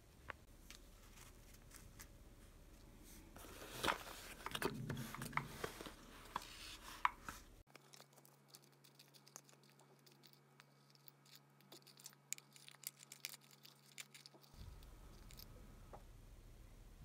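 Quiet handling sounds: rustling and light knocks for a few seconds, then a long run of small, light clicks and taps as metal earrings and other jewellery are picked up and set into a box.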